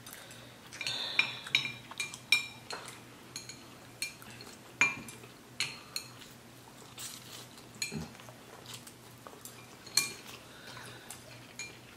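Chopsticks clicking and scraping against plates in short, irregular taps while noodles are picked up and eaten, with occasional soft slurping.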